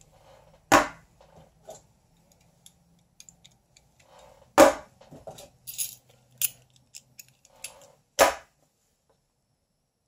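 Metal multitools being handled: three sharp metallic snaps a few seconds apart, with lighter clicks and jingling between them.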